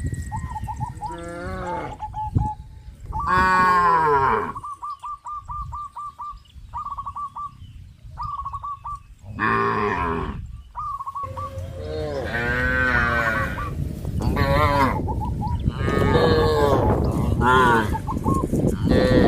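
A herd of cows mooing: long calls about three and ten seconds in, then a run of calls, some overlapping, through the second half. Between the first moos comes a string of short, high calls repeated several times a second.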